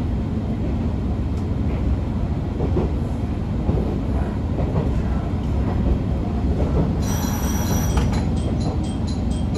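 Interior of a Matsuura Railway diesel railcar running along the track: a steady low rumble of engine and wheels on rails. About seven seconds in there is a brief high hiss, followed by faint regular clicking.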